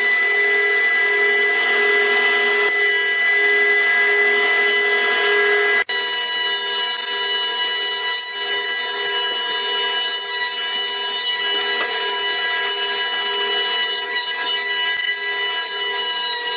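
Powermatic 15S thickness planer running as pine boards feed through its cutterhead: a loud, steady machine whine, with a brief break about six seconds in.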